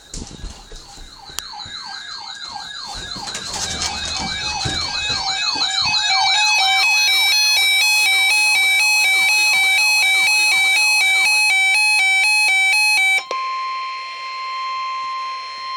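Weather alert radio alarms going off for a tornado watch. First a rapidly sweeping electronic siren-like wail grows louder over about six seconds. Then comes a loud pulsing pattern of alternating beeps, and near the end a steady single tone, the NOAA Weather Radio warning alarm tone, for about three seconds.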